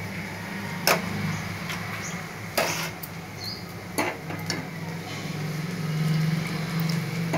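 Steel ladle clinking against a stainless steel pot and bowl while stew is ladled out, a few separate clinks over a steady low hum.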